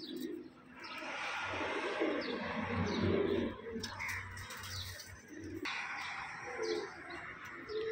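Domestic pigeons cooing, low throaty murmurs that come and go, over a steady hiss that stops suddenly about two-thirds of the way through.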